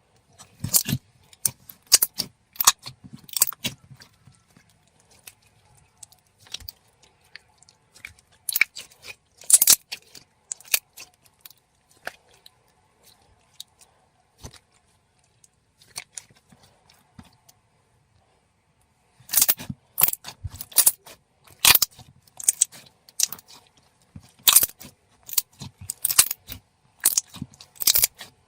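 Thick, glossy slime being pressed and poked by hand, giving sharp wet clicks and pops in quick clusters, with a sparser stretch in the middle.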